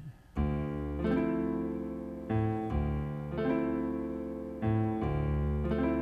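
Piano accompaniment playing on its own: after a short pause, a new chord struck every second or so, each left to ring and fade.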